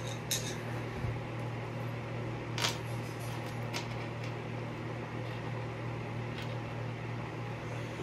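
Steady low hum of a running fan or appliance in a small room, with a few light clicks and taps as the ceiling fan and its blades are handled.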